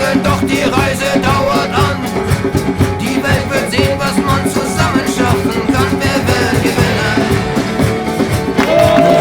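Upbeat music with a fast, steady beat. Near the end a long held note comes in.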